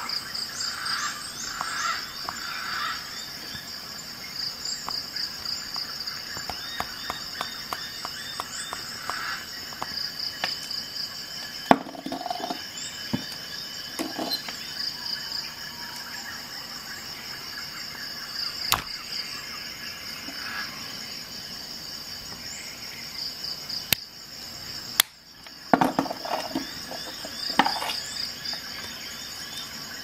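Steel tip of a Swiss Army knife tool scraping and gouging a wooden block: scattered light scratches and clicks, with a few sharper knocks, the loudest about twelve seconds in. A steady, evenly pulsing insect-like chirping runs underneath.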